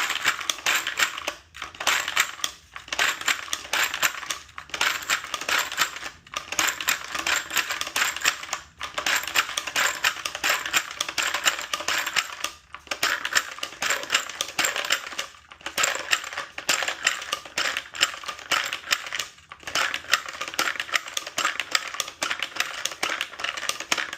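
Rifle cartridges clicking and clattering as they are pushed rapidly through a 3D-printed AR-15 magazine loader into the magazine: a dense run of small metallic clicks, broken by short pauses every few seconds.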